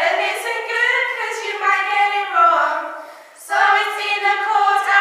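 Teenage girls singing together unaccompanied, holding and sliding long notes, with a short break about three seconds in before they start again.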